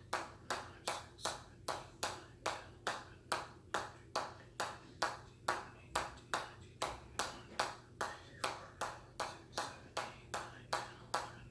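A hammer striking metal in a steady, even rhythm, about two and a half blows a second, each a sharp ping with a short ring.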